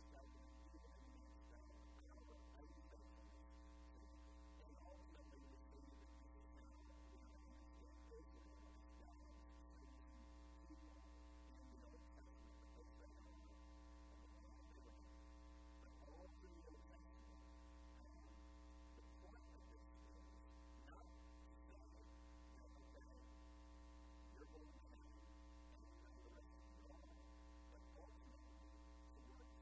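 Near silence: a steady electrical mains hum with several overtones.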